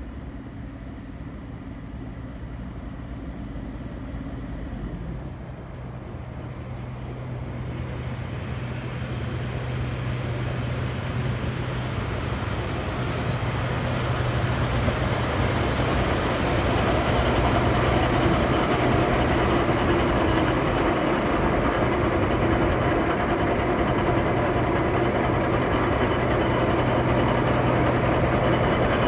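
HSB class 199.8 narrow-gauge diesel locomotive 199 874-9 running with a steady low engine drone. It grows steadily louder over the first half as the locomotive draws near, then holds steady close by.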